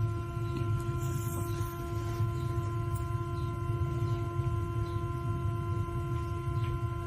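A steady pitched hum with even overtones over a low, fluctuating rumble.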